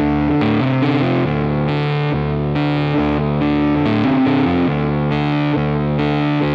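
Background music on distorted electric guitar, held chords changing every second or so.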